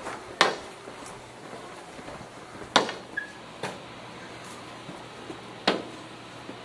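A wooden staff knocking on a hard floor: three sharp knocks a couple of seconds apart, with a lighter one between the second and third, over a faint steady room hum.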